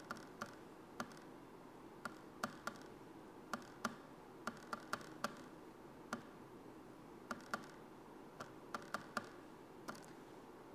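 Buttons of a handheld scientific calculator being pressed one at a time: faint, irregular clicks, about two a second, some in quick pairs, as a string of numbers is keyed in to work out an average.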